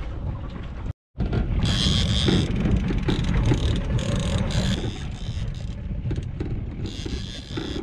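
Small fishing boat's outboard motor running with wind on the microphone. After a brief cut about a second in, a high-pitched buzz comes and goes in spurts as a hooked fish pulls line off the trolling reel's drag.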